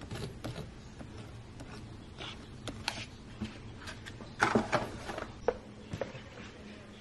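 Butter knife scraping and tapping as butter is spread over a toasted oat bar on a paper plate, followed by a few louder knocks and clatters on the kitchen counter about halfway through.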